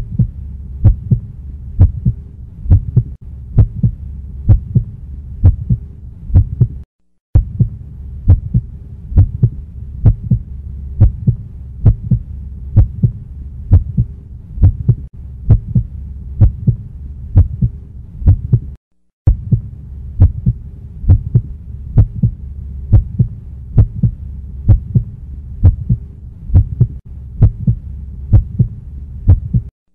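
A steady, evenly paced low thumping pulse over a low hum and a faint steady tone. It cuts out briefly twice, about a quarter and two-thirds of the way in.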